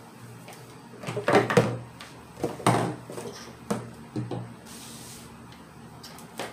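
Handling knocks and clatter as a small submersible pump and its cord are bumped and set down on a wooden tabletop: a run of short knocks between about one and four seconds in, the loudest near the start of that run.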